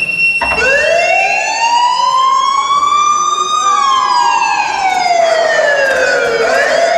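A wailing siren, its pitch rising slowly for about three seconds, falling for about three, and starting to rise again near the end.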